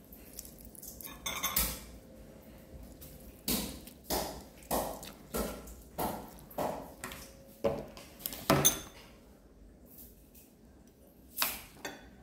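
Eating utensils clinking against bowls and plates during a meal: about a dozen short sharp clinks, most in a fairly even run about every half second through the middle.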